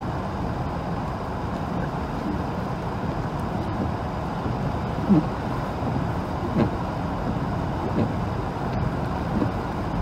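Steady road and tyre noise of a car driving on a snow-covered highway, heard from inside the car. A short swish recurs about every second and a half in the second half.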